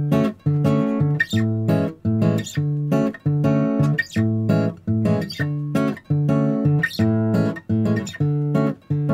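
Background music: acoustic guitar strumming short chopped chords in a steady bossa nova rhythm.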